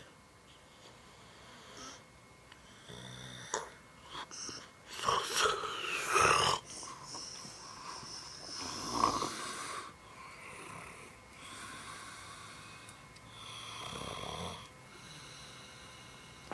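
A man snoring in his sleep: a series of irregular snores, the loudest about five to six seconds in and again about nine seconds in, some with a high whistling tone.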